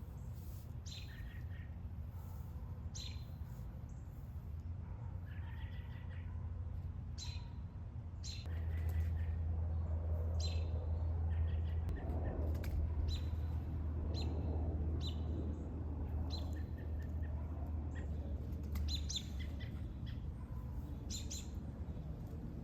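Birds chirping in many short calls, over a low steady hum that grows louder about eight seconds in and eases off near the end.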